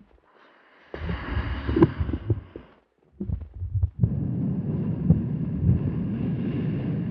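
A live human body's own sounds amplified through a sound installation: a low rumbling, noisy burst about a second in with a few clicks, a short burst after three seconds, then a steady low rumble.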